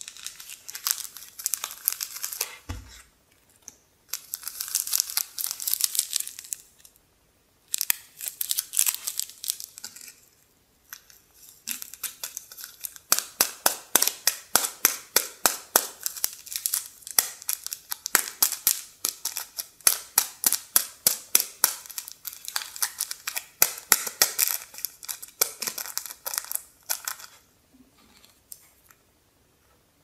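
Crinkling and rustling of a small packaged instant-noodle seasoning sachet handled between the fingers: a few rustly bursts with pauses, then from about twelve seconds in a long fast run of sharp crackles, several a second, that stops near the end.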